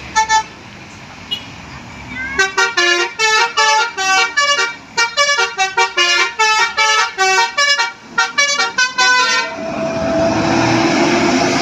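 Bus telolet musical air horn (Basuri type) giving two short toots, then playing a quick melody of short notes at changing pitches for about seven seconds. A loud, steady rushing noise takes over near the end.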